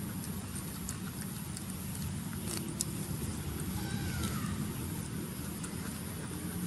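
A steady low rumble, like a nearby engine running, with a few faint clicks about two and a half seconds in and a brief faint falling whistle about four seconds in.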